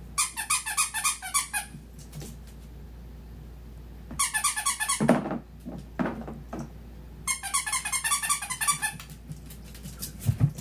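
Squeaker inside a plush dog toy squeezed over and over, giving three runs of quick high squeaks, each about a second long.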